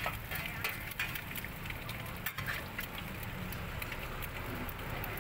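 Egg frying in hot oil in a wide steel wok, sizzling and crackling steadily, with a low steady rumble underneath.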